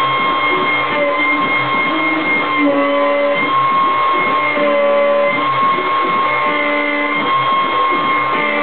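Guitar background music with held notes that change every half second to a second. Under it runs a steady high whine, the CNC router's spindle cutting into the wooden slab.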